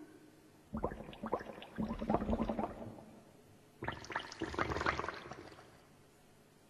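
Gurgling, bubbling water-like sounds in two swells of about two seconds each, the first starting under a second in and the second about four seconds in, each made of many quick clicks.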